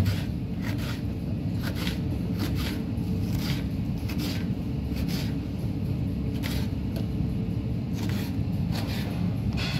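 Kitchen knife chopping red capia pepper on a wooden cutting board, a short knock roughly once a second at an uneven pace, over a steady low rumble.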